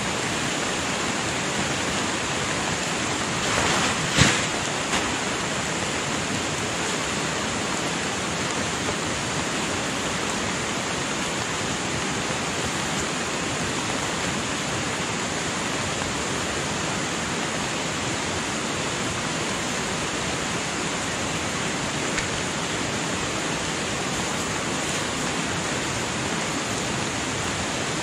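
Steady rushing water noise, unbroken throughout. A brief rustle a little over three seconds in ends in a single sharp knock just after four seconds.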